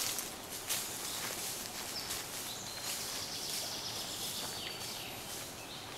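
Woodland ambience with birds chirping briefly now and then over a steady hiss of leaves, and rustling as people walk through long grass.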